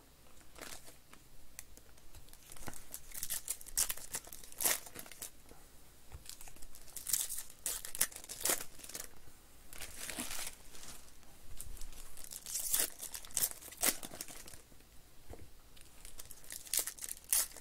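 Foil wrappers of Panini baseball trading-card packs being torn open and crinkled by hand, in a run of irregular sharp crackles and rips.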